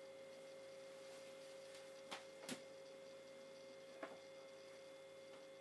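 Near silence: a faint steady hum with a few faint short clicks, about two seconds in, again half a second later and near four seconds.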